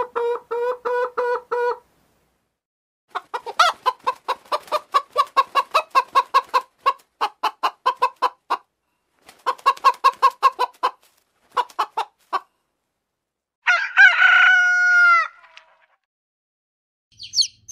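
Chicken clucking in rapid runs of short notes separated by pauses, then a rooster crowing once, about a second and a half long, near the end.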